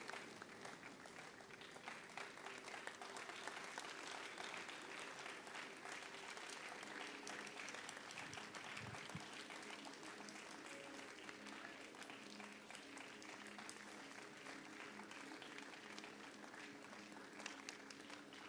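Faint, steady applause from a congregation, with a few soft held tones underneath from about seven seconds in.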